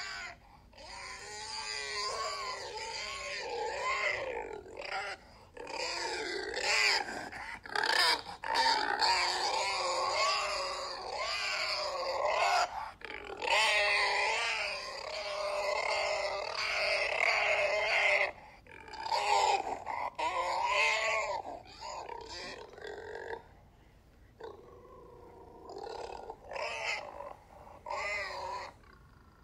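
Pigs grunting and squealing: wavering, pitched calls in long runs with short breaks, turning into shorter, quieter bursts in the last few seconds.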